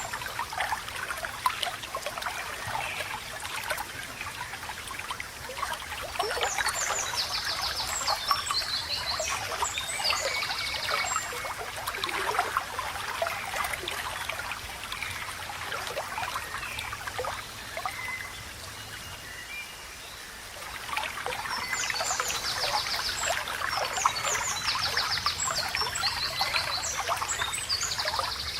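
Shallow water babbling and trickling, with constant small splashes and gurgles. Birds twitter over it, with bursts of high trilled song about a quarter of the way in and again through the last few seconds.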